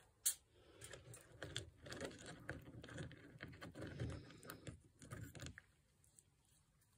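Faint handling sounds of a paintbrush working resin hardener over small gemstones in a plastic tub: a sharp click near the start, then soft irregular ticks and scrapes of stones knocking against each other and the plastic, stopping about five and a half seconds in.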